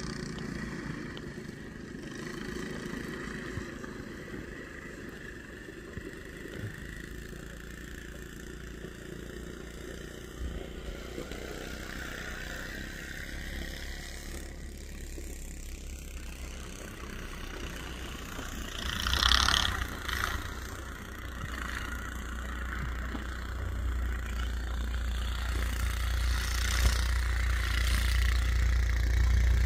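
Snowdog tracked snow machine's small engine running as it tows a sled down a snowy hill, growing steadily louder as it approaches. A short, louder rush of noise comes about two-thirds of the way through.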